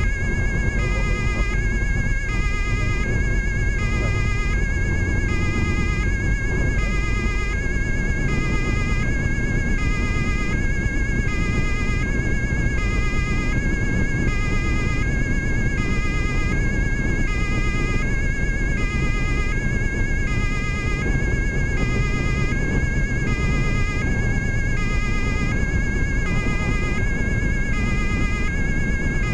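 German police two-tone siren alternating steadily between a high and a low tone, heard from inside the cabin of the speeding car over steady road and engine noise.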